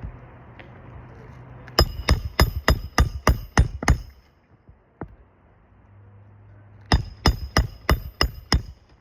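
Hammer driving roofing nails into asphalt shingles: a run of about nine quick strikes, roughly four a second, each with a metallic ring, then about seven more after a pause of a few seconds.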